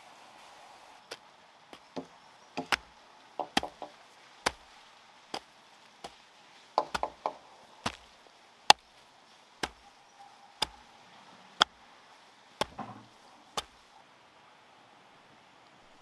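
Repeated sharp chopping strikes on wood, roughly one a second with a few quick double blows, stopping a couple of seconds before the end.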